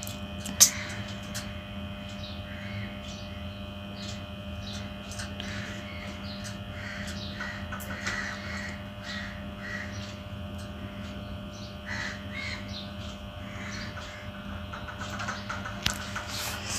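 Short bird calls repeated about once or twice a second, over a steady electrical hum.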